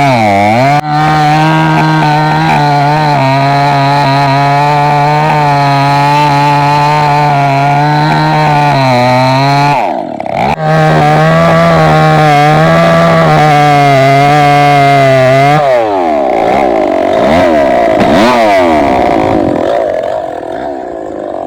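Chainsaw engine running at high revs in a steady, loud whine. It dips briefly at the start and cuts out for a moment about ten seconds in. From about 16 s it revs up and down unevenly and fades near the end.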